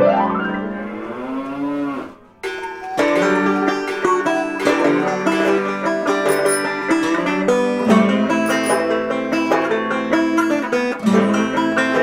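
Intro background music: a sliding tone that fades out about two seconds in, then plucked-string instrumental music with quick, sharply struck notes.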